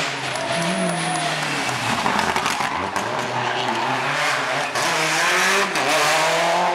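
Mitsubishi Lancer Evolution rally car's turbocharged four-cylinder engine revving hard as the car drives past close by, with tyres squealing on the tarmac. It is loudest near the end as the car goes by.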